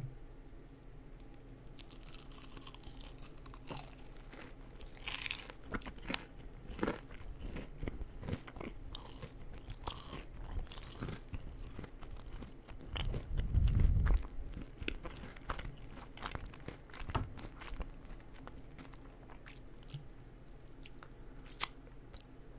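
Close-miked eating: crisp crunching bites and chewing, with many small crackles throughout and one louder low thud a little past halfway.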